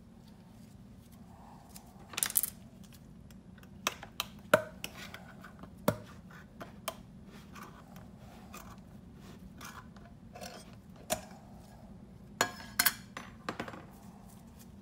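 Scattered light clicks, taps and scrapes of a stick against an open metal epoxy can and a paper plate on a scale, as the epoxy is scooped out and measured, over a low steady hum.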